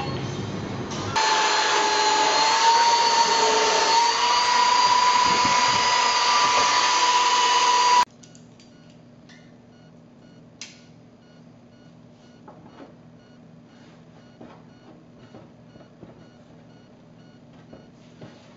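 A power tool's motor running steadily at high speed, its pitch rising slightly and then holding, before cutting off suddenly. Faint clicks and light metal taps follow as a steel hoop is fitted onto an oak barrel.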